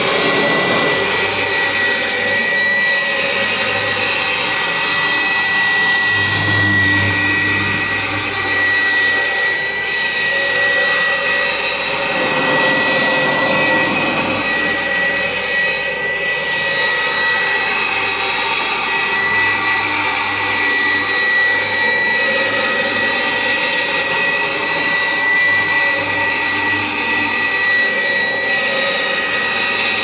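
Full-metal Kirby G4 upright vacuum cleaner with a 10-blade aluminum fan running steadily while vacuuming shampooed carpet: a constant high whine from the motor and fan over the rush of air.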